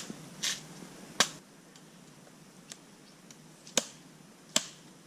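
A handful of sharp, short snaps or cracks at uneven intervals: loud ones at the start, about a second in, and twice near the end, with a softer one and a few faint ticks between.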